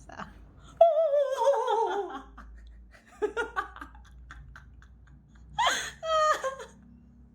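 A person's vocal sound effects: a long wavering cry sliding down in pitch about a second in, then short bursts of laughter-like giggling and a higher squeal near the end.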